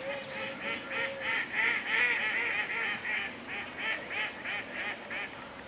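Ducks quacking in a fast run of short calls, about four a second, swelling loudest around two seconds in and then tapering off.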